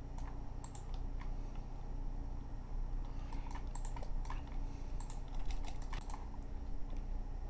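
Computer keyboard keys clicking in short irregular clusters, the shortcut keystrokes of someone working in 3D software, over a steady low hum.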